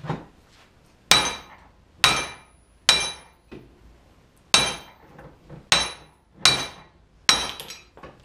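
Small sledgehammer striking the yoke of a Jeep Dana 44 front axle shaft held in a bench vise: about seven hard metal-on-metal blows, each with a short ringing tone, with a longer pause after the third. The blows drive the U-joint bearing cap out of the yoke.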